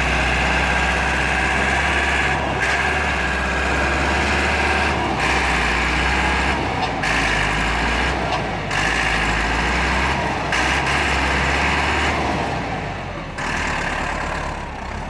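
Massey Ferguson 385 tractor's diesel engine labouring under a heavy load, a steady low drone while it tries to haul an overloaded sugarcane trolley out of soft ground. A hiss cuts in and out over it several times.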